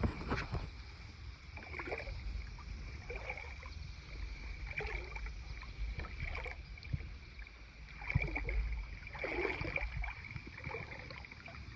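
Water swishing and splashing in a shallow river, a soft swish every second or two as someone moves through it, over a low rumble of wind on the microphone.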